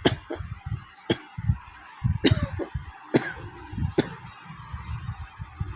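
A woman coughing over and over: about six short, sharp coughs, roughly one a second, with low muffled sounds between them. It is a real, heavy cough from a chest cold with a sore throat.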